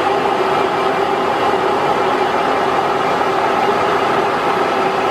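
Manual metal lathe running steadily at 440 RPM through a single-point threading pass, the gear train and leadscrew driving the carriage with the half nut engaged. It gives a steady machine hum with a few held tones that do not change.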